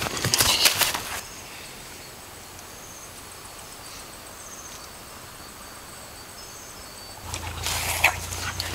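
Rustling and footsteps through grass and brush for about the first second. Then a lull with insects chirping, a thin high steady tone with short high chirps. Near the end come loud rustling footsteps in the grass again.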